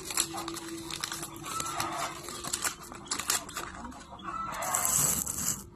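Clicks and rustling as a paper-wrapped firecracker is handled over a digital scale, with a louder hissing rustle near the end. Chickens cluck in the background.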